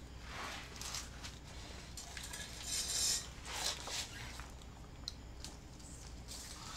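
Handling of self-adhesive chrome trim tape being peeled back and repositioned: a few short scratchy rustles, the loudest about three seconds in, then a light click near five seconds.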